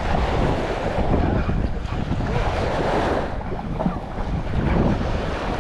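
Wind buffeting the microphone, with the wash of waves underneath.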